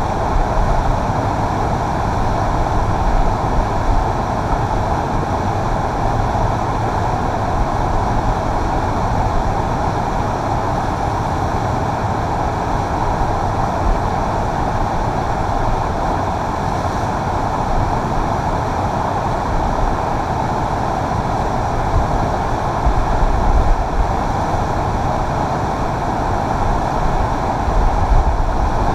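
Steady roar of whitewater rapids pouring over a river's play-wave feature, a constant rushing noise with a deep rumble underneath that swells a little about two-thirds of the way in and near the end.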